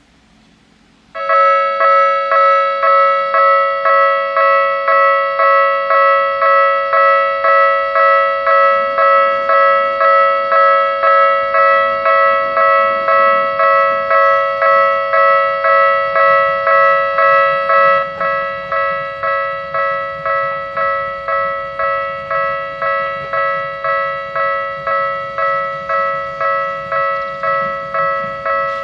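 Japanese railway level crossing alarm ringing: an electronic two-tone bell that starts suddenly about a second in and strikes about one and a half times a second. About two-thirds of the way through it steps down to a lower volume and keeps ringing.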